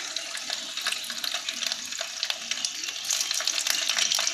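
Paneer cubes sizzling and crackling in hot oil in a kadai, the sizzle growing louder about three seconds in.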